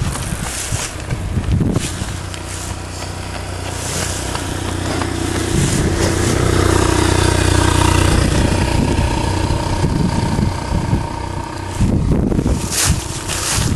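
A motor vehicle passing: a low engine rumble that swells to its loudest about halfway through and then fades. Short gusts of wind or handling noise on the microphone come near the start and near the end.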